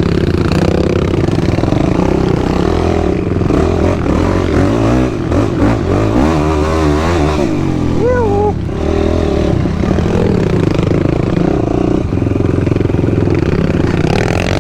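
Sport quad's engine being ridden on a trail, revving up and down with the throttle, its pitch rising and falling quickly several times about halfway through.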